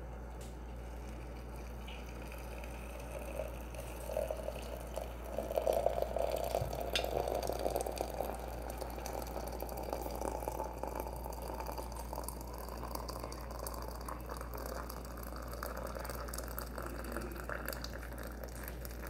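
Water poured in a steady stream from a kettle into a ceramic teapot. It is loudest about a third of the way in, and its pitch rises slowly as the pot fills.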